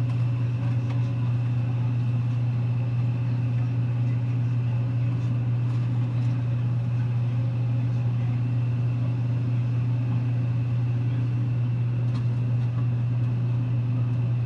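Demolition excavator's diesel engine running steadily, a low drone with a faint high whine over it, and a few faint knocks.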